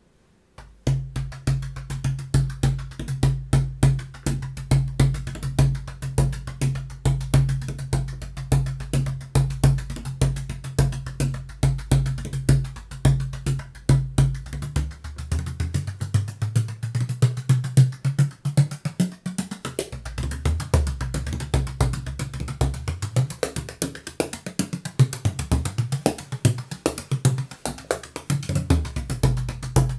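An 18-inch 1996 Malachy Kearns tunable bodhrán played with a tipper in a fast, continuous rhythm, starting about half a second in, with a deep ringing note under the strokes. From about halfway through, the low note shifts up and down in pitch.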